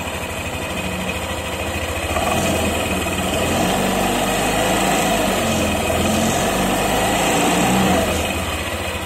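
Yamaha NMAX 2020 scooter's single-cylinder engine running with the CVT cover off, the belt pulleys and clutch bell exposed. It is revved up about two seconds in, held, and eased back near the end, testing that the new 1000 RPM center spring keeps the torque drive from opening too early.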